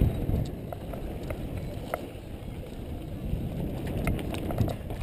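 Wind buffeting the microphone of a bike-mounted camera and a knobby bike tyre rolling over packed dirt jumps, with scattered light clicks and rattles from the bike.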